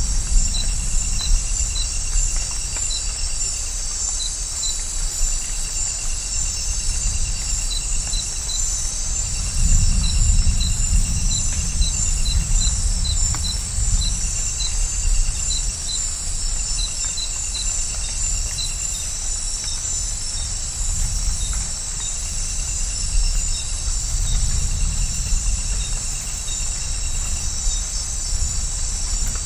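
Dense night-time insect chorus: a steady high shrill with rapid repeated chirps and trilled phrases a couple of seconds long. Under it, low rolling rumbles of distant thunder swell and fade, strongest about ten seconds in and again near twenty-four seconds.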